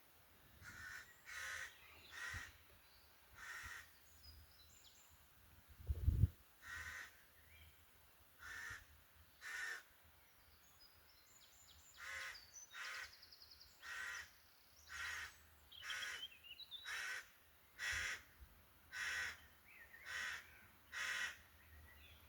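Crows cawing over and over, about one caw a second, with a short pause early on; a single low thump about six seconds in is the loudest sound.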